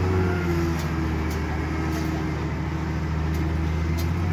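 Wheel loader's diesel engine running steadily as the machine drives off with its bucket raised, a deep even hum with a few light clicks.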